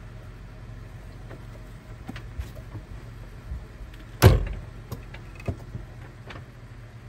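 Jeep Wrangler driver's door slammed shut once, about four seconds in, over the low steady hum of the idling engine. A few light clicks and knocks come before the slam.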